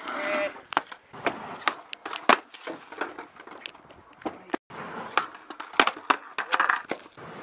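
Skateboards on asphalt and a wooden kicker ramp: repeated sharp clacks and slaps as decks and wheels hit the ground and the ramp, with wheels rolling between them as skaters ride off the ramp and fall.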